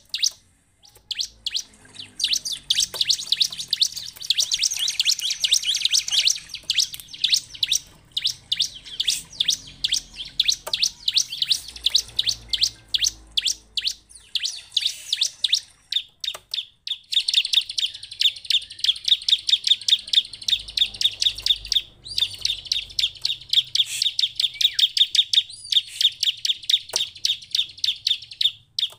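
Bar-winged prinia (ciblek) calling in long, fast runs of sharp, high chirps, several a second, broken by short pauses about a second in, around the middle and past two-thirds of the way.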